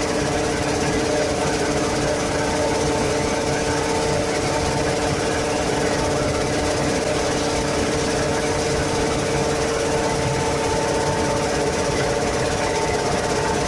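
GSF40 wet concrete reclaimer running: a steady machine drone with a constant hum, over the hiss of water jets spraying onto the gravel screen.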